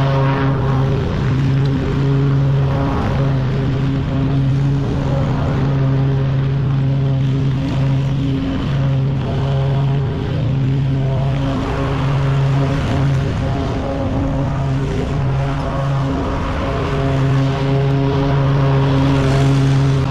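Walk-behind commercial lawn mower's engine running steadily at a constant pitch while cutting tall, overgrown grass.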